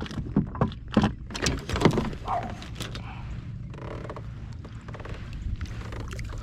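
A run of sharp knocks and clicks against a plastic fishing kayak in the first couple of seconds, then softer handling noise over a low steady hum.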